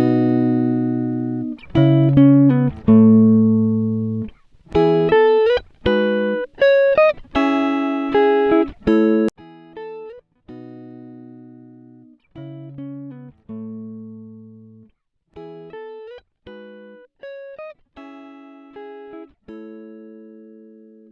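Instrumental music: a plucked, guitar-like tune of separate held notes and chords with sharp starts and short gaps between them, quieter from about halfway through.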